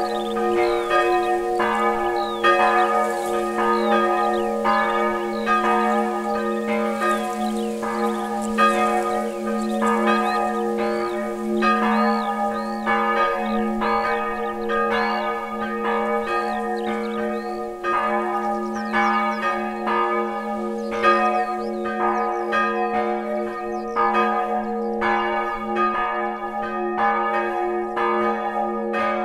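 Church bell swung by a hand-pulled rope, ringing in steady, regular strokes, somewhat more than one a second, with its hum carrying on between strokes.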